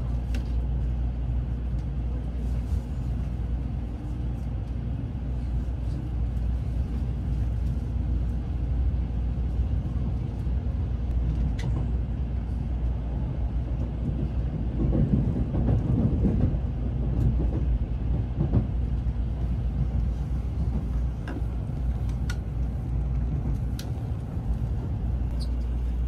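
Steady low rumble inside a Shinkansen Nozomi carriage, swelling louder for a couple of seconds about midway.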